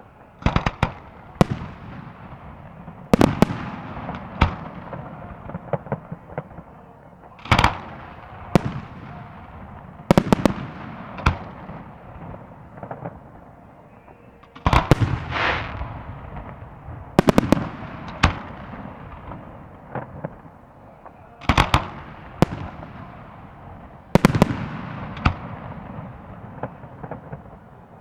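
Fireworks salute: aerial shells bursting with sharp bangs in irregular clusters every few seconds, each followed by a rolling echo.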